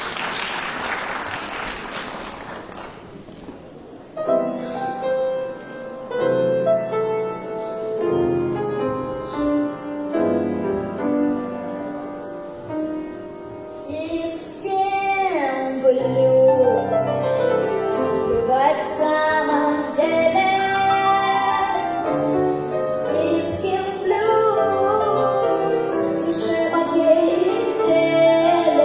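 Applause dying away, then a piano playing the introduction of a blues song from about four seconds in. From about fourteen seconds a girl's voice joins over the piano, singing wordless sliding notes.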